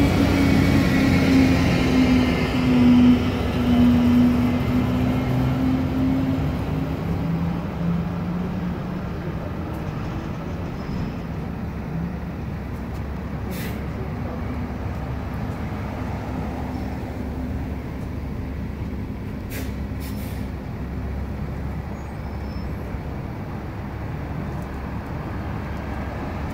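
Heavy truck engine running loud as the truck drives past, its pitch wavering and falling and the sound fading over the first several seconds, then a steady hum of street traffic.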